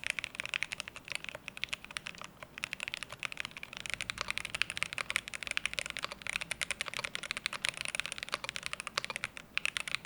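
Fast, continuous typing on a Cyberboard R2 custom mechanical keyboard with an aluminium plate and factory-lubed linear switches: a dense run of keystroke clacks, with short breaks about two seconds in and near the end.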